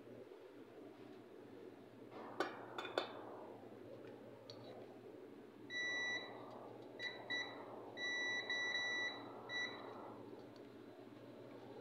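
Digital multimeter in continuity mode beeping as its probes touch points on a circuit board: a series of steady high beeps, some brief blips and some up to about a second long and broken, each sounding while the probes bridge connected points. Two sharp clicks come a few seconds before the beeping.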